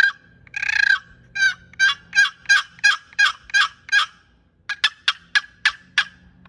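Wooden turkey box call, a mahogany lid scraped across the walnut side of a glued two-piece box, imitating turkey yelps. It plays two long drawn yelps, then a run of about eight shorter yelps at roughly three a second, then a quick string of about six short, sharp notes near the end.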